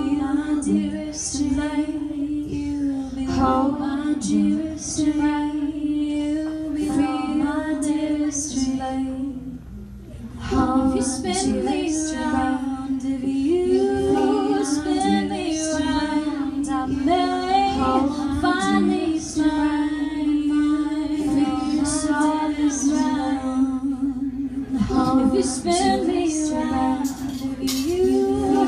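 Woman singing live, her melody moving over a steady held low note that runs underneath, with a brief drop in level about ten seconds in.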